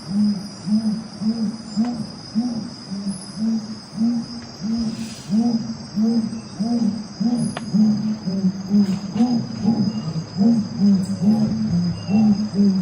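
Night insects, crickets among them, droning steadily at a high pitch, with a low call repeating evenly about twice a second underneath.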